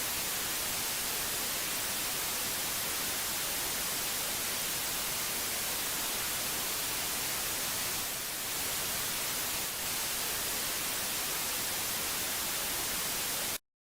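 Steady static hiss, brightest in the high end, with two brief dips about eight and ten seconds in; it cuts off abruptly just before the end.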